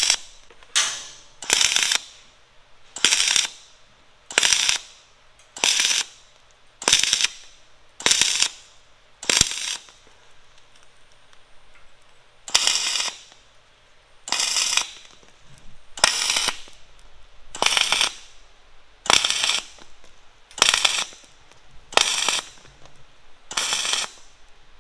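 Dual-shield MIG welder arc crackling in short trigger pulses, about sixteen bursts of under half a second each, roughly one every 1.2 to 1.5 seconds, with a pause of a few seconds near the middle. The welds are pulsed in short stitches so as not to put much heat into the steel.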